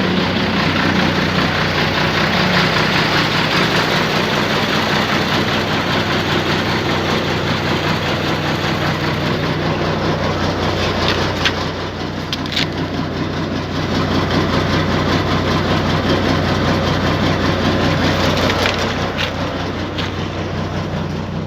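Iveco Eurotech truck's diesel engine idling steadily just after a cold start. A few sharp clicks sound about halfway through and again near the end.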